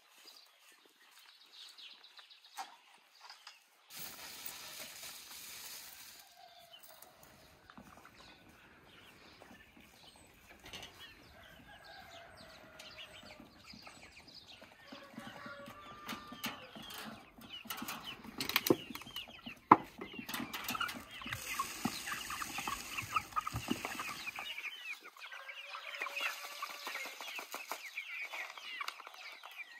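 A flock of domestic hens clucking, with many short, high calls that grow dense over the last third as the birds crowd round the feeder. Wings flap and bodies jostle, and a single sharp knock about two-thirds through is the loudest sound.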